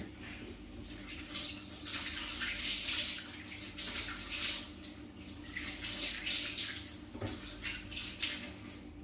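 Kitchen mixer tap running into a sink while dishes are rinsed under the stream, the splashing rising and falling as the hands move, and stopping at the end. A brief knock about seven seconds in.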